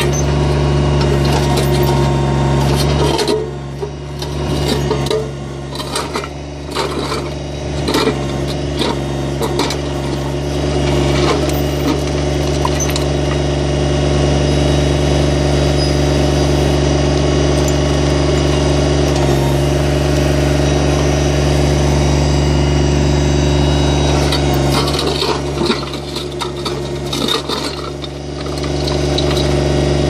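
Kubota BX25's three-cylinder diesel engine running steadily while its backhoe digs in rocky ground, with the bucket scraping and knocking against rocks, the knocks clustered a few seconds in and again near the end.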